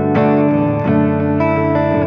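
Electric guitar, a Fender American Professional Deluxe Shawbucker Telecaster, playing a melodic line of several sustained notes through effects with some distortion, over a backing track.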